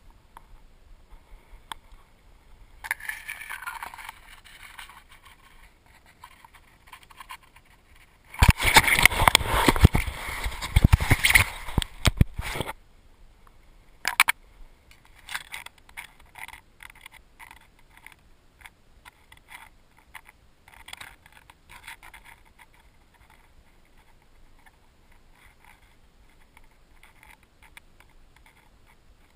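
Rustling and scraping right against a camera strapped to a Labrador retriever as the dog shifts in brush, loudest for about four seconds in the middle, with scattered quieter clicks and rustles around it.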